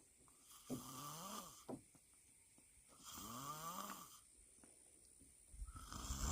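A sleeping person snoring: two long, rattling snoring breaths about two and a half seconds apart, then a louder low rumbling noise building near the end.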